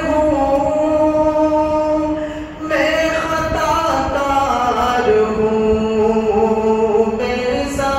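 A man's solo, unaccompanied voice chanting an Islamic devotional poem (Hamd o Naat) in long held, gliding notes. There is a brief breath pause about two and a half seconds in.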